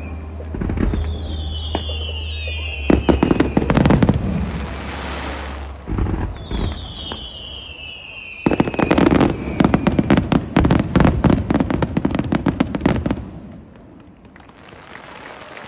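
Aerial fireworks going off: a cluster of sharp bangs and crackling about three seconds in, then a dense rapid volley from about eight and a half to thirteen seconds, with high whistles falling in pitch in between. It drops off much quieter near the end.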